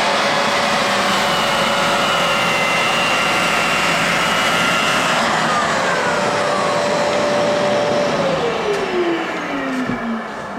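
Lagler Flip floor edger sanding along the edges of a pine floor with 120-grit paper, running at steady speed. About eight seconds in it is switched off and its motor pitch falls steadily as it winds down.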